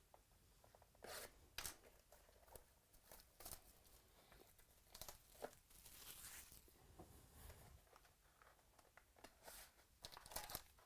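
Faint tearing and crinkling of packaging as a box of trading cards is opened, in short scattered rustles with a few light clicks.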